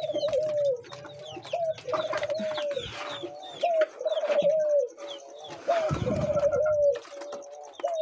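Caged doves cooing over and over, each coo a short rising note followed by a long falling one, with budgerigars chirping higher above them. A brief stretch of handling noise comes about six seconds in.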